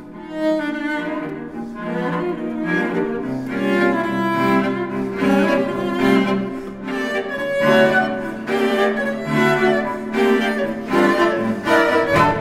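Background music: a bowed-string piece with the cello prominent, moving through sustained, changing notes.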